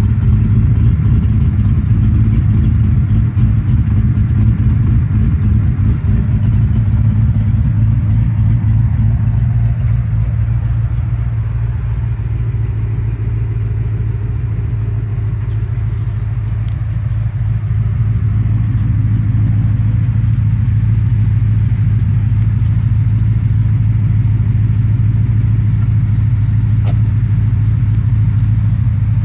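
Chevrolet Caprice PPV engine idling steadily through its dual exhaust, fitted with aftermarket eBay Camaro headers, giving a deep, even note with no revving.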